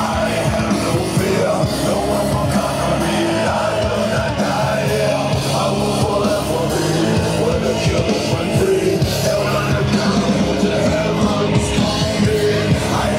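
Rock music with a driving beat and vocals.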